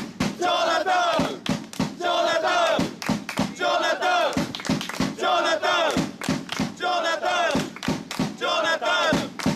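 Football supporters chanting a player's chant in unison: a short shouted phrase, falling in pitch, repeated about every one and a half seconds over sharp regular beats.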